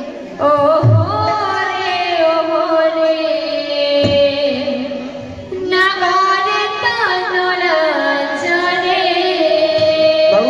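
Odia devotional kirtan: a voice sings a melody over a steady held drone note, with a few drum strokes. The singing drops away briefly a little past the middle, then comes back in.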